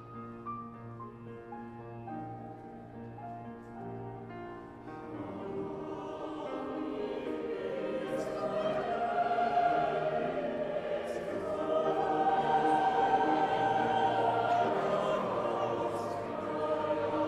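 Choral music: slow held instrumental notes, then a choir singing from about five seconds in, growing louder.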